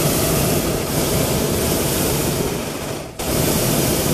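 Hot-air balloon's propane burner firing in a loud, steady blast, shut off briefly about three seconds in and then opened again.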